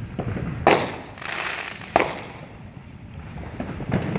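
Consumer fireworks going off: a sharp bang under a second in and another about two seconds in, with smaller pops around them.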